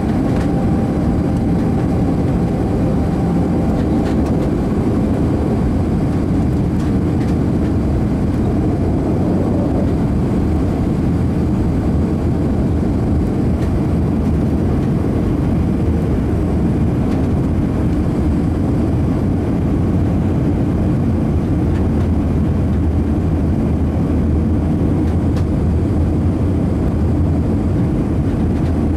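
Airbus A319 cabin noise in flight on approach: a steady, loud roar of the jet engines and rushing air. A faint steady tone fades out about four seconds in, and a deeper hum grows stronger about halfway through.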